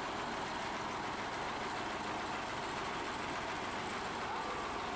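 Diesel engine of a Swaraj farm tractor running steadily.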